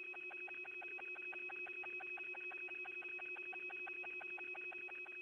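Open radio communications channel between calls: two steady electronic tones, one high and one low, under a fast, even pulsing buzz of about six or seven pulses a second.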